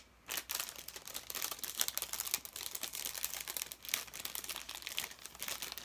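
Packaging crinkling and rustling as it is handled and rummaged through, an irregular run of dry crackles.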